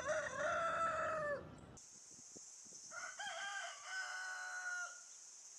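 A rooster crowing twice: one crow already under way at the start and ending about a second and a half in, and another from about three seconds in to about five. A steady high hiss sets in about two seconds in.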